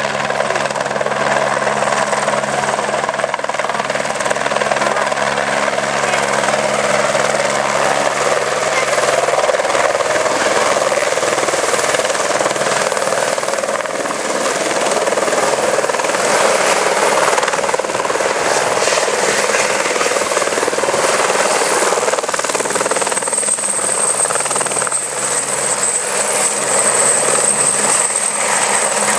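Turbine helicopter hovering and manoeuvring low overhead: steady rotor and engine noise. A low steady hum drops out about a third of the way in, and a high turbine whine comes in near the end.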